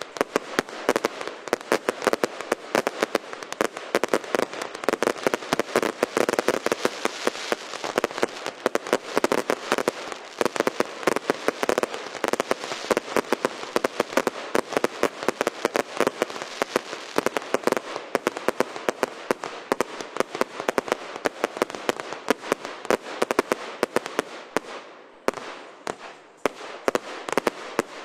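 Fireworks going off in a rapid, dense crackle of many sharp cracks a second, thinning out briefly near the end before picking up again.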